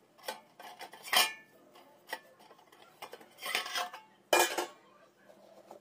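Stainless steel plates knocking and scraping against a steel pan and each other as a plate is set into the pan and a second plate is laid over it as a lid. There is a loud clank about a second in, a scraping clatter around three and a half seconds, and another loud clank just after it.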